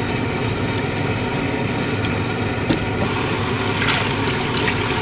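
Water pouring from a jug into a pan of blanched beef knee pieces, splashing onto the meat; the pour gets louder and fuller from about three seconds in. A steady low hum runs underneath.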